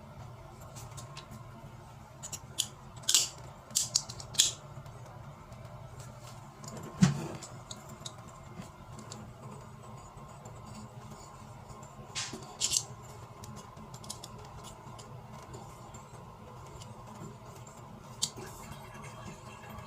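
Scattered sharp clicks and scrapes of hard small objects being handled, the loudest about seven seconds in, over a steady low hum.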